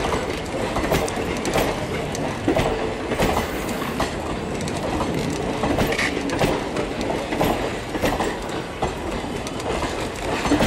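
Indian Railways blue ICF passenger coaches rolling past close by, their wheels clattering over the rail joints in a steady run of clicks and knocks.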